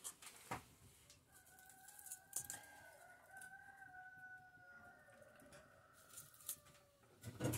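A distant rooster crowing, one long drawn-out call lasting about five seconds. Faint knocks of firewood being handled at the hearth, with a louder thump near the end.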